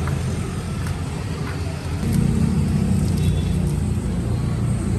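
Steady low rumble of a motor vehicle engine running, getting a little louder about two seconds in, with a few faint light clicks.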